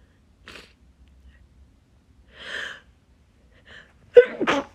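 A person's short, noisy in-breaths, a few gasps spaced out as a sneeze builds. Near the end a loud, sharp sneeze bursts out.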